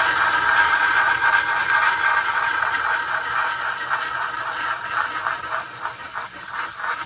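A small electric motor, such as a hobby rotary tool or drill, running steadily at high speed with a rattling edge.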